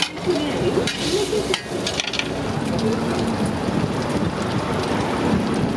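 Sliced mushrooms sizzling in oil on a flat-top griddle, a steady crackling hiss, with a few sharp clicks and scrapes in the first two seconds from a metal spatula.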